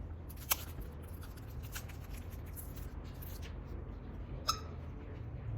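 Light handling sounds: scattered soft rustles and ticks, with two sharp clicks about half a second in and near the end, over a low steady hum.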